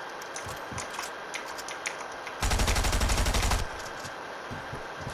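Automatic gunfire in a video game: one rapid burst of about a second, roughly ten shots a second, over scattered light clicks.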